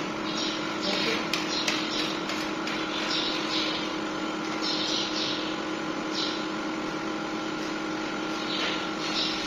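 Brush strokes rubbing over a plaster ceiling moulding, short soft swishes about once a second, over a steady background hum.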